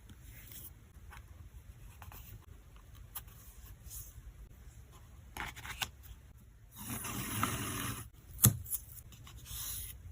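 Photocard packing: plastic sleeves and packing materials handled on a desk, with scattered small taps and clicks. A longer crinkling rustle comes about seven seconds in, then a sharp click.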